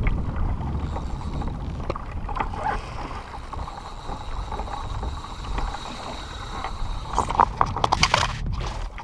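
Wind buffeting the microphone and water lapping against a plastic kayak hull, a steady low rumble. About seven seconds in, a quick run of sharp clicks and knocks close to the microphone.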